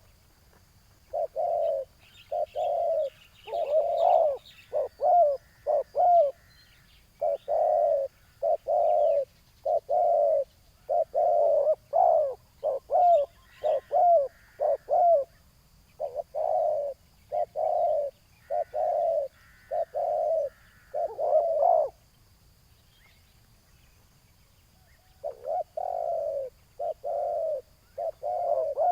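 Spotted doves cooing in repeated low phrases of several notes each, breaking off for a few seconds about two-thirds through and then resuming. Faint chirps of small birds sound in the background.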